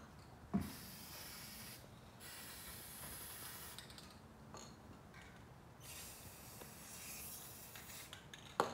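Aerosol spray-paint can hissing faintly in a few long bursts with short breaks between them, as black paint is sprayed onto the water surface for hydro dipping. A single knock sounds about half a second in.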